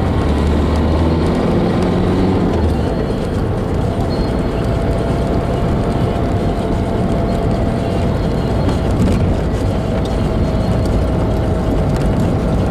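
Steady engine and tyre noise of a moving car, heard from inside it. The engine note rises over the first couple of seconds as the car picks up speed, then the running noise holds steady with a faint thin whine.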